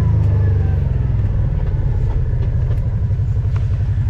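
Off-road vehicle engine running close by, easing off about a second in and settling into a slow, pulsing idle.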